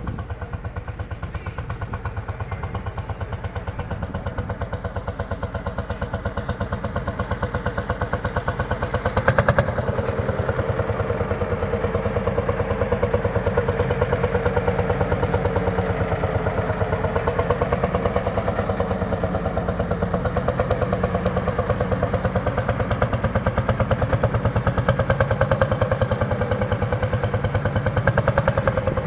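Lanz Bulldog's single-cylinder two-stroke hot-bulb engine running on with a fast, even beat of firing strokes. A sharp knock comes about nine seconds in, after which it runs a little louder.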